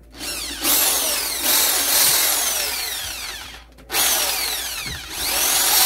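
Electric hammer drill, switched out of hammer mode, boring a hole into a wall with a whine that repeatedly falls in pitch. It stops briefly a little before four seconds in, then starts again.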